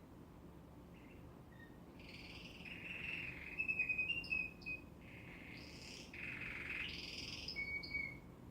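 Domestic canary singing: two phrases of rapid warbled trills and high whistled notes, with a short pause between them.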